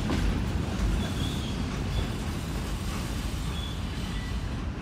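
Low rumble of a freight train's cars rolling away, fading slowly as the tail of the train recedes.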